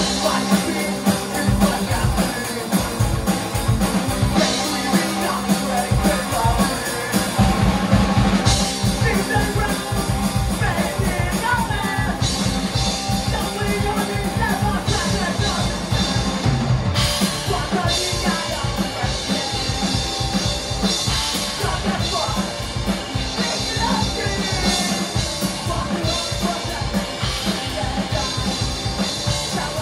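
Fast melodic skate punk played live by a band: a drum kit pounding out a rapid beat with crashing cymbals under electric guitar and bass, with two voices singing.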